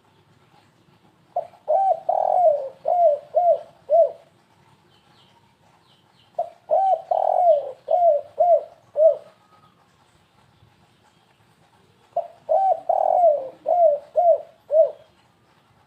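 Spotted dove (tekukur) cooing: three calling bouts a few seconds apart, each a quick run of about six short coos with one longer, fuller note early in the run. This is the stuttering 'kuk-3' call used to lure doves.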